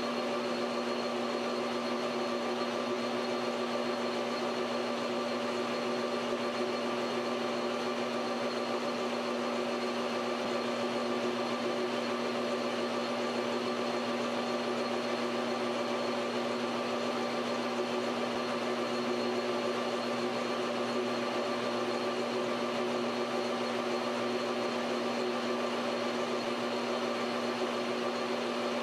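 Metal lathe running at a steady speed with a constant motor and drive hum while turning a taper on a copper rod held in a collet chuck.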